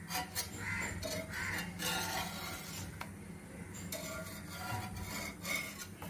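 Rolling pin going back and forth over a stuffed aloo paratha on a rolling board, a run of short rubbing strokes about every half second.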